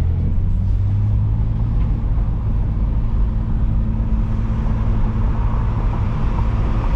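Car driving along with a steady low engine drone and road noise, the exhaust in its quiet setting.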